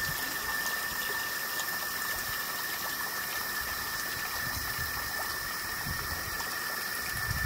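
Steady outdoor ambience: an even hiss with a constant high-pitched tone running through it.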